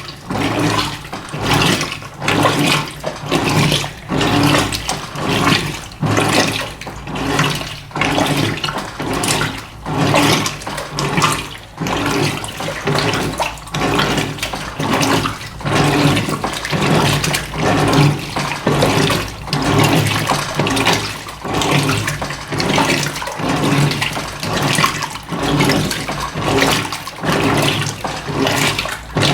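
Electrolux LF90 top-loading washing machine agitating a load of rugs in a low water level: the motor hums under rhythmic surges of sloshing water, roughly one a second.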